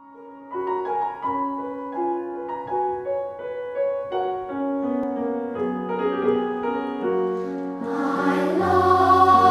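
Choir music: sustained sung notes that move to a new pitch about every half second. The music grows fuller and louder near the end as a deep bass note comes in.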